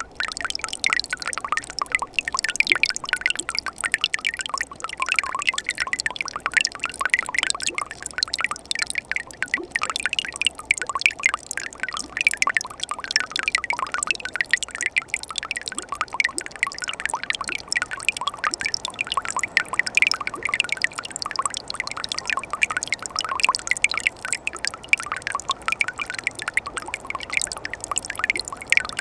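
Mountain stream water flowing and splashing steadily over rocks, with constant bubbling and babbling.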